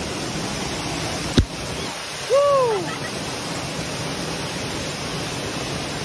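The 66-foot waterfall pouring down close by, a steady roaring rush of falling water. A sharp knock comes about a second and a half in, and a short voiced exclamation rises and falls just after two seconds.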